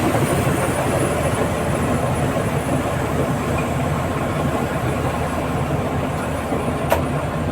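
Komatsu D85ESS bulldozer's diesel engine running steadily, with a single sharp click about seven seconds in.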